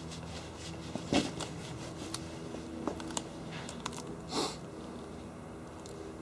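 Bernese mountain dog gnawing a dry wooden stick: scattered cracks and crunches of wood, the sharpest about a second in and a rougher crunch near four and a half seconds, over a faint steady hum.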